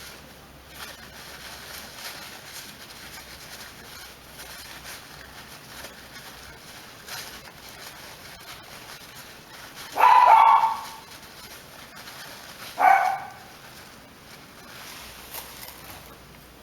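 A dog barking twice, about three seconds apart, with faint handling and rustling noise in between.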